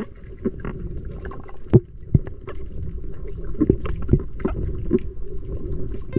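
Underwater sound picked up by a GoPro camera as a diver swims: a steady, low, muffled rush of water with irregular clicks and knocks.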